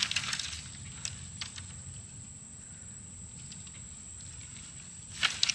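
Short rustling, clattering bursts of firewood being gathered and handled: a cluster at the start, a few more about a second in, and the loudest near the end. A steady high-pitched insect drone runs underneath.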